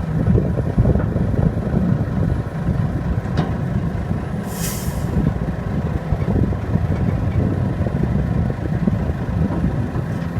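Heavy diesel engines of a Sumitomo SH210F excavator and a ten-wheel dump truck running steadily during loading. A short hiss of air about four and a half seconds in, like a truck's air brake.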